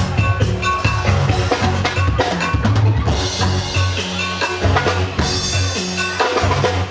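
Band music led by a drum kit: a busy beat of bass drum and snare hits over sustained bass notes, with other pitched instruments above.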